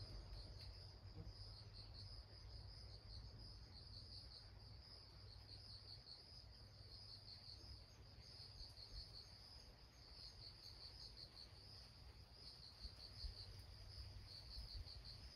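Faint insect chirping: a steady high-pitched trill that pulses in short runs, over a low background rumble.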